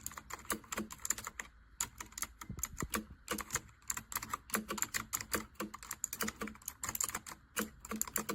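Typing on a Dierya T68SE 60% mechanical keyboard with linear red switches: rapid, uneven keystrokes with a short pause about a second and a half in.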